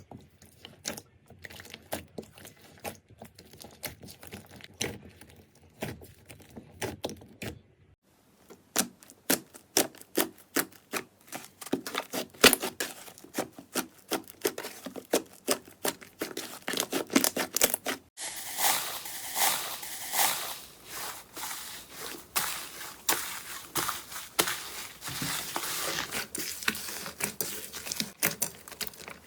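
Slime being squeezed and pressed by hand, giving a dense run of small clicking and crackling pops. The sound changes abruptly twice, about eight and eighteen seconds in, as one slime clip gives way to the next.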